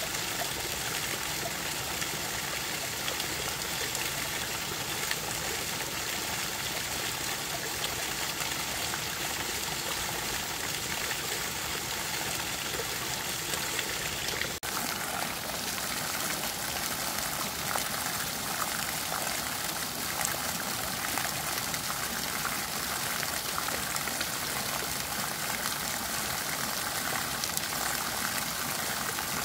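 Shallow spring-fed stream water running and trickling steadily, with a brief drop about halfway through.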